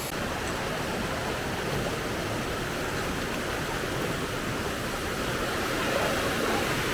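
Steady rush of fast-flowing water from a stream or waterfall.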